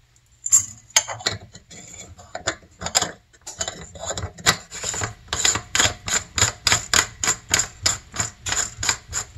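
Aerosol lubricant can being shaken, its mixing ball clicking about three times a second. A few irregular clicks come first.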